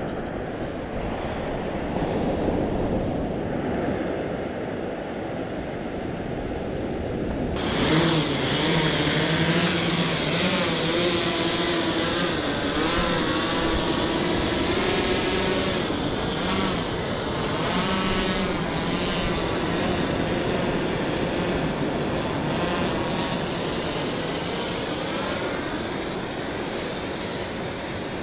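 Wind and surf at first, then from about eight seconds in a quadcopter fishing drone flying close by: its propellers whine with a pitch that wavers up and down as it manoeuvres, growing fainter as it flies out over the sea.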